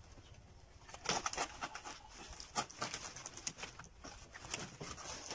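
Large fresh banana leaf rustling and crackling as it is handled and worked along its midrib, in irregular crisp bursts starting about a second in.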